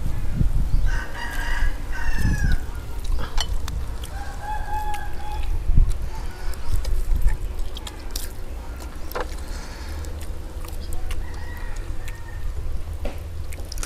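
A rooster crows, a long call about a second in and shorter calls later, with some clucking. Scattered sharp clicks sound in between.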